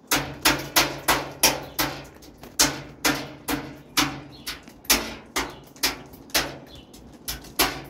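Toddler banging a small object on the metal mesh shelf of a patio table: a string of sharp knocks at an uneven pace, about two to three a second, each ringing briefly.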